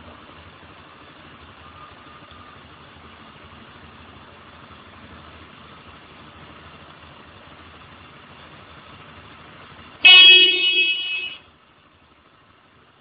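Motorcycle engine idling steadily, then the motorcycle's horn sounds once, a single blast of just over a second, about ten seconds in.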